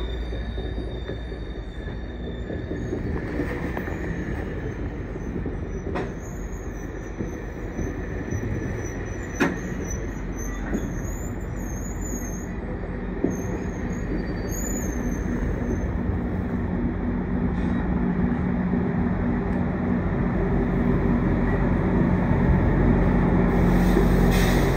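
GO Transit bilevel passenger coaches rolling slowly past on the rails, with a wavering high wheel squeal through the middle and a couple of sharp clanks. Near the end the diesel locomotive's engine grows louder as it comes alongside.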